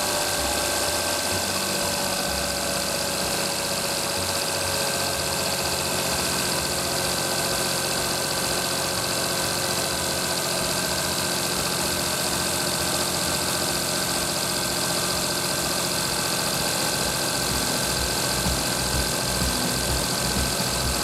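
Daihatsu Tanto L375S's small three-cylinder engine idling steadily, heard at the engine bay with a rebuilt alternator newly fitted on its accessory belt while listening for the belt-area abnormal noise.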